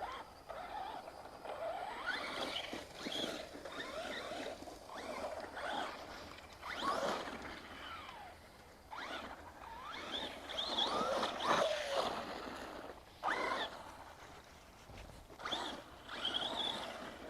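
Traxxas Rustler RC truck driving over a very bumpy road: its motor whines up and down with the throttle, and its chassis knocks and squeaks as it bounces.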